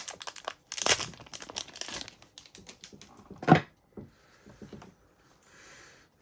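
Foil trading-card pack wrapper crinkling and tearing open, dense for about two seconds, then thinning to scattered crackles as the cards come out. One louder sharp sound about three and a half seconds in.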